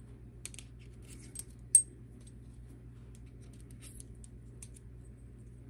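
Light clicks and taps of a thin metal helicopter shaft and small tool parts being handled and fitted into a swash leveling tool, with one sharp metallic click just under two seconds in, over a low steady hum.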